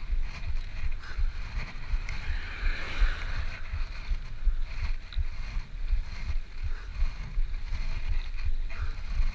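Wind buffeting the microphone of a camera riding along on a bicycle, a constant irregular low rumble.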